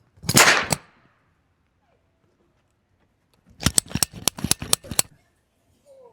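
Nail gun firing: one louder burst lasting about half a second near the start, then a quick run of about eight sharp shots some three and a half seconds in.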